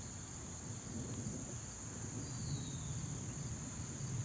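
Insect chorus, a steady high trill, over a low uneven rumble. A faint falling whistle comes about two seconds in.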